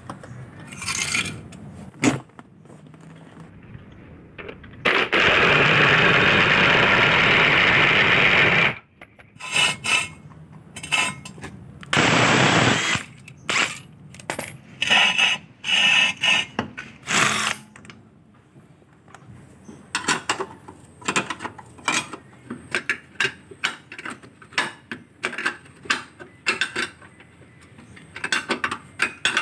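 Hand tools working on a Perodua Myvi's front strut mounting: many short metallic clicks and clinks of a spanner on the strut-top nut. About five seconds in, a steady noise lasts nearly four seconds, and a shorter one comes about twelve seconds in.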